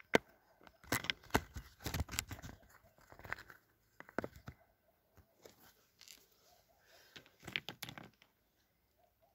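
Irregular crunches, scrapes and clicks of someone scrambling over rough, loose rock, in clusters about a second in and again near the end.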